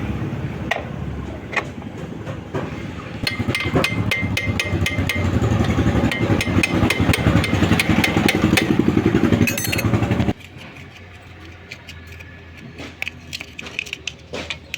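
A motorcycle engine running, with rapid clicking over it, that stops abruptly about ten seconds in, leaving only faint scattered clicks.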